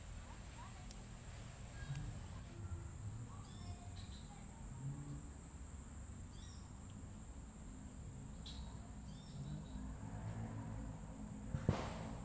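Steady, unbroken high-pitched chorus of crickets or similar insects over a low rumble, with a few faint chirps and a sharp click near the end.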